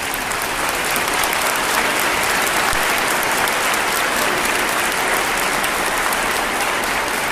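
Large audience in an arena applauding, the clapping building over the first second and then holding steady.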